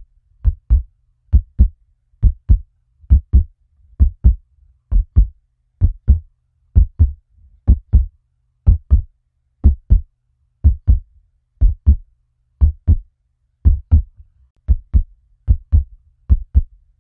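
Heartbeat sound effect: a steady lub-dub of two short, low thumps, repeating about once a second.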